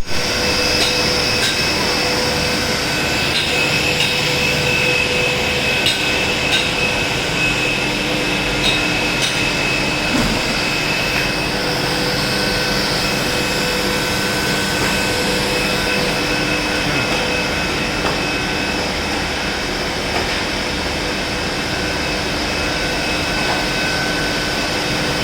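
Steady mechanical running noise with a few constant hum-like tones and scattered light clicks, the sound of machinery running.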